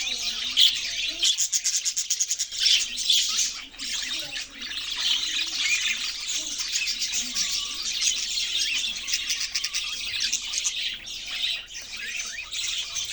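Several budgies chattering and chirping over one another without a break. About a second in there is a fast, rattling trill.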